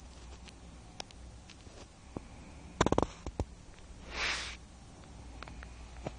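A sleeping woman snoring: one hissy, breathy snore about four seconds in, lasting about half a second. Just before it comes a quick cluster of sharp clicks, the loudest sound here.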